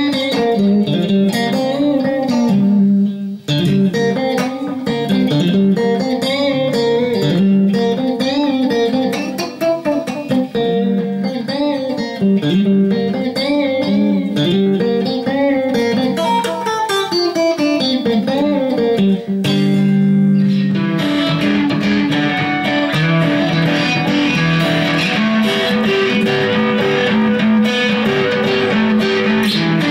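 Strat-type electric guitar, freshly fitted with new single-coil pickups, being played to test them: single-note lead lines with string bends, then busier chord strumming from about two-thirds of the way in.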